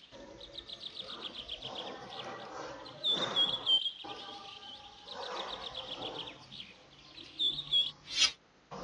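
Recorded birdsong sound effect: small birds chirping and trilling in quick repeated phrases, a louder burst of chirps about three seconds in. A short swish near the end.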